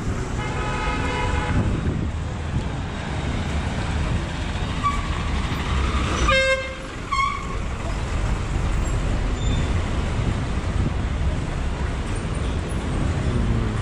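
Vehicle horns honking over steady street noise: a held toot at the start, then a short, louder blast about six and a half seconds in, followed by a brief beep.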